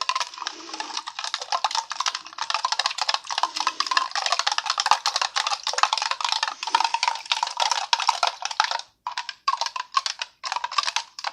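Metal spoon stirring a drink, clicking and scraping rapidly against the sides and bottom of the cup, with a light ringing. The stirring pauses briefly a couple of times near the end. The powdered orange beverage mix is being worked through to break up clumps.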